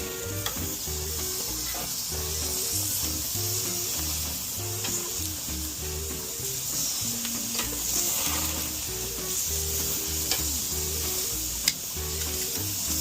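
Chuck eye steaks sizzling steadily as they sear on a hot gas grill's grates, with a low music track of held bass notes underneath. A single sharp click stands out near the end.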